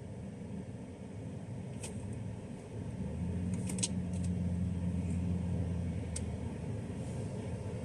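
Vehicle engine running with a steady low hum, swelling into a stronger drone through the middle, with a few light clicks and rattles.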